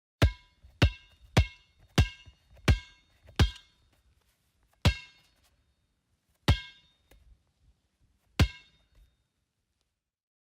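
Basketball bounced on a hard floor, each bounce a sharp hit with a short ringing ping. Six steady dribbles come first, then three single bounces with longer pauses between them.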